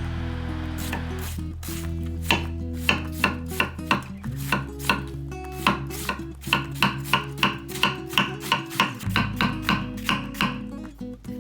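Kitchen knife chopping on a cutting board in a quick, even rhythm of about three strikes a second, over background music with held notes.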